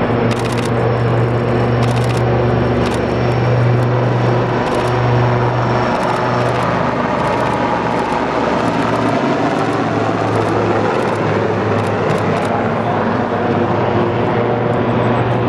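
Westland Lynx helicopter flying low past: a steady thrum from the rotor blades with the whine of its twin turboshaft engines, shifting in pitch as it goes by in the second half.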